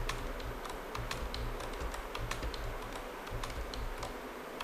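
Computer keyboard keys pressed over and over in quick, uneven clicks: Ctrl+V keystrokes pasting the same text repeatedly.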